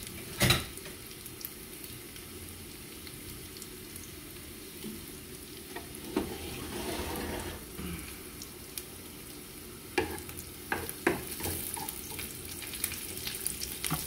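Green onion and a serrano chile sizzling steadily in a little lard in a frying pan. There is a loud knock about half a second in, a stretch of stirring in the middle, and a few sharp utensil clicks near ten to eleven seconds.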